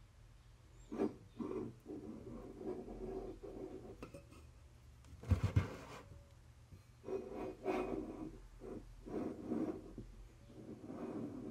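Soft, irregular rubbing and scratching from a handheld phone camera being moved around, with a brief knock about five seconds in.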